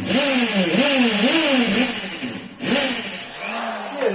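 Electric hammer drill boring into a plastered brick wall in hammer mode: a loud grinding hiss over a motor whine that wavers up and down about twice a second under load. It stops briefly about two and a half seconds in, then starts again.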